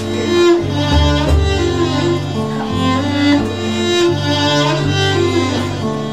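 Music on bowed strings: a cello holds long low notes that change every second or so, under a higher bowed melody.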